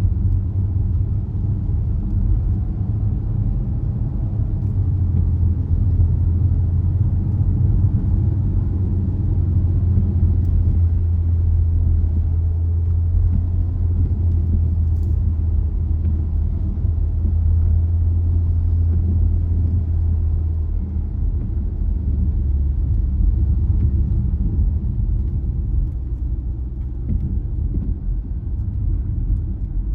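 A car on the move, heard as a steady low rumble of engine and road noise that eases off slightly about two-thirds of the way through.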